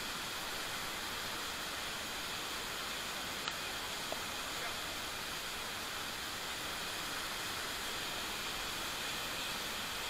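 Steady, even rush of a large waterfall in heavy flow, the water crashing into its plunge pool close by.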